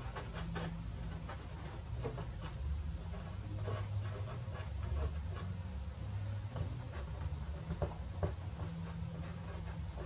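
Soft pastel stick scratching and dabbing on paper in short, irregular strokes, over a low steady hum.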